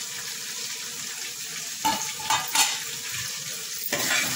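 Small whole brinjals sizzling in hot oil in a steel pan, fried partway, with a steady hiss. A few short knocks come around the middle, and the sizzle grows louder near the end.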